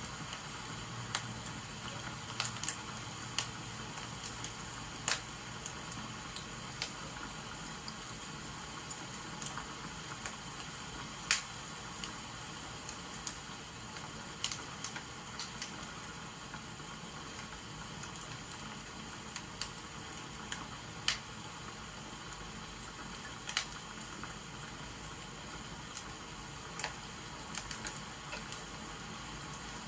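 Wood fire crackling, with irregular sharp pops every second or two over a steady rain-like hiss.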